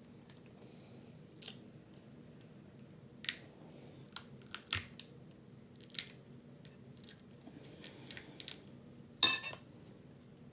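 Crab leg shells cracking and clicking as they are pried and broken open with a fork: a dozen or so scattered sharp snaps, the loudest a short crunching crack near the end.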